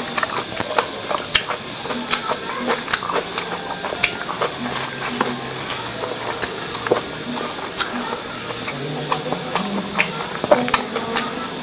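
Close-miked eating of instant noodles: wet chewing with sharp lip smacks and mouth clicks, several a second in an irregular rhythm.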